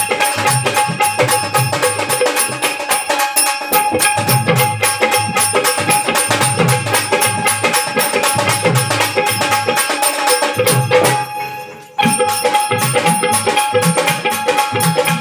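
Marathi folk music in a lavani rhythm: an Indian banjo band with drums and jingling percussion playing a fast, even beat. About eleven seconds in, the music fades for a moment, then starts again abruptly.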